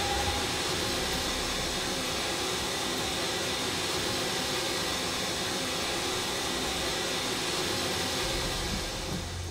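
Steam locomotive's whistle cutting off just after the start, followed by a steady hiss of escaping steam that eases slightly near the end.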